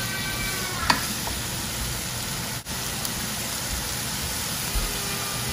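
Ground pork and sliced onions sizzling in a nonstick frying pan as they are stirred with a silicone spatula, a steady frying hiss with one sharp click about a second in.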